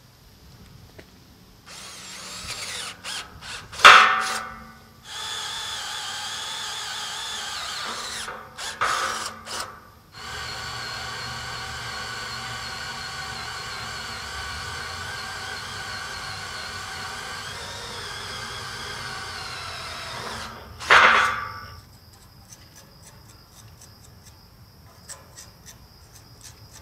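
Cordless drill with a cobalt twist bit boring into the steel angle track, its motor whining steadily under load in several long runs, broken by short pauses. Two brief, much louder spikes come about four seconds in and again near twenty-one seconds, and the drilling stops a few seconds before the end.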